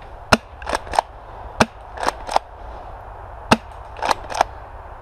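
Spring-powered airsoft shotguns firing: a run of about nine sharp snaps and clacks at uneven intervals, three of them louder than the rest.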